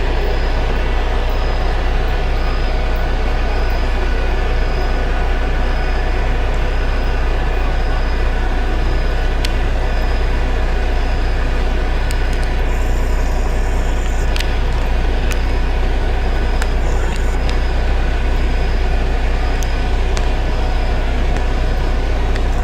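Mercedes-Benz O-500 RSD coach's 360 hp inline-six diesel running loud and steady, without revving. A short high beep repeats about every three-quarters of a second through the first half.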